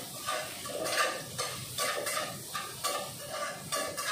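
A spatula stirring and scraping vegetables being stir-fried in oil in a pan on the stove, about two to three strokes a second, over a light sizzle.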